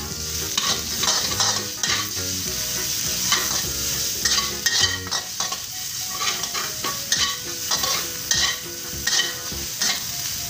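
Chicken, garlic, chilli and shiitake mushrooms sizzling in hot oil in a non-stick wok, with a spatula stirring and scraping across the pan in repeated strokes.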